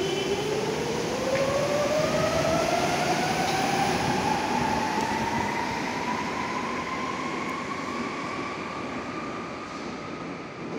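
Berlin U-Bahn train accelerating, its motors giving a whine that climbs steadily in pitch over a running rumble, the sound slowly fading after its peak.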